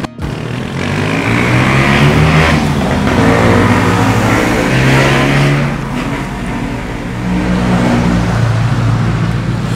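Motor vehicle engines passing close by on a highway: a loud engine revs with its pitch rising and falling in the first half, then runs steadier and lower toward the end.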